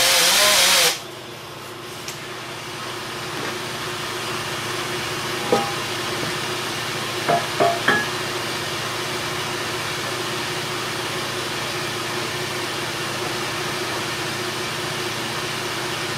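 A small vane-type pneumatic polishing tool runs loudly with a wavering pitch for about the first second, then shuts off. A steady machine hum carries on after it, with a few light metal clinks about five seconds in and three quick ones around eight seconds in as the aluminium casting and tools are handled on the cast iron table.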